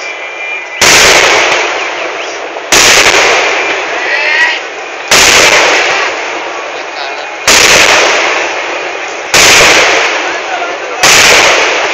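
Kerala temple-festival fireworks (vedikkettu): six heavy explosions go off about every two seconds, each a sudden loud bang that fades slowly before the next.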